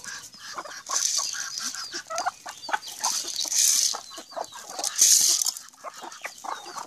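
Free-range chickens clucking with many short calls, broken by a few bursts of high hissy noise.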